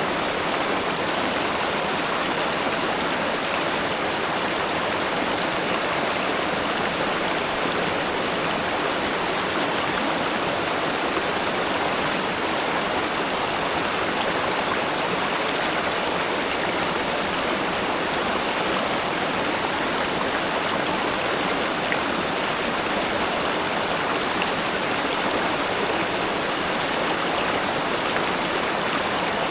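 River water flowing, a steady, even rush of running water with no breaks.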